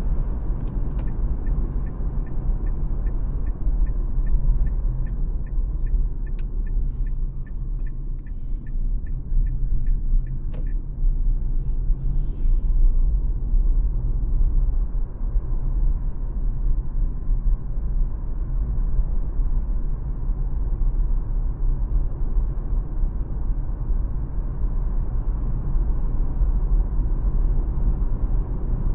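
Steady low road and tyre rumble inside the cabin of a 2024 Dacia Spring electric car on the move. For the first ten seconds or so a turn signal ticks about twice a second, then stops.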